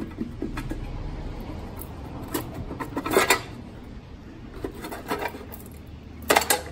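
Scattered light metallic clinks and taps of hand tools on engine parts, in a few short clusters with the loudest near the end, over a steady low hum.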